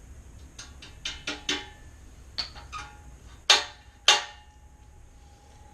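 A series of irregular sharp knocks and clicks, about nine in all, the two loudest about three and a half and four seconds in, the last leaving a faint ringing tone.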